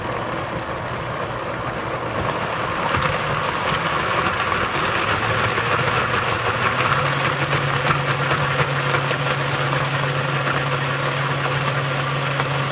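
Countertop blender motor running at high speed, grinding cooked ridge gourd, tomato and spices into a smooth chutney paste. It runs steadily, grows louder about three seconds in, and stops abruptly at the end.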